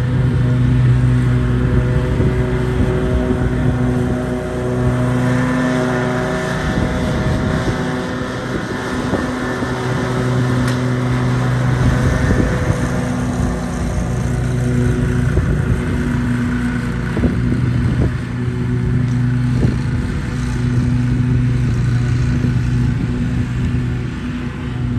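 Zero-turn riding mower's engine running steadily under mowing load, its hum growing louder and softer several times as the mower passes back and forth across the lawn.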